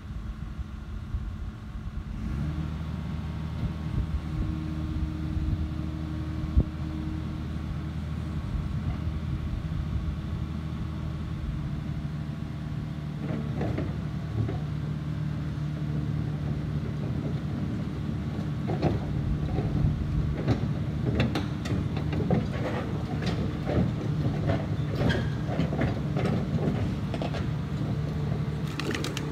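Caterpillar D5 dozer's diesel engine running, stepping up in level about two seconds in. From about halfway on, its steel tracks clank and squeak as it crawls down the trailer deck and ramps.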